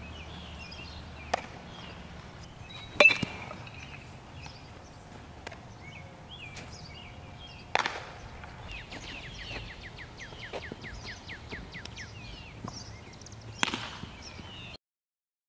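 Sharp single knocks from baseball infield practice, the loudest about three seconds in, over birds chirping, with a quick run of falling chirps from about nine to twelve seconds. The sound drops out abruptly just before the end.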